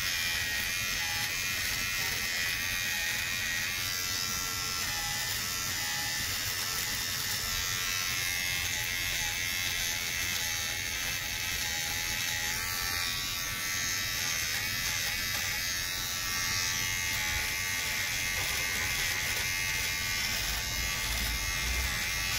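Kemei electric shaver-trimmer running with a steady buzz as it is worked over chin and mustache stubble.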